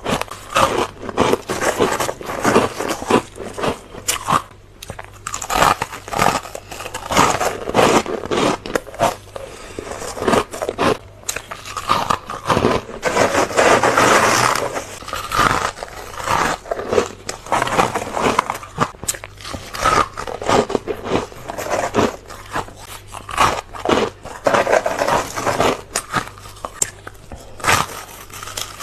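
Ice being bitten and crunched close to the microphone: a rapid, irregular run of sharp cracking bites, with a longer stretch of unbroken crunching about halfway through.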